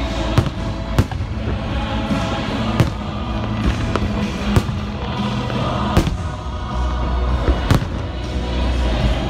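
Aerial fireworks shells bursting, a sharp bang every second or two, over music playing.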